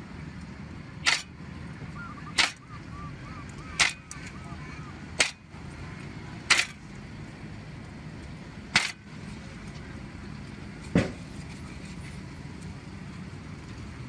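A heavy knife chopping down onto a wooden chopping board, seven single sharp chops about one every one and a half seconds, the gaps growing longer toward the end, over a steady low background hiss.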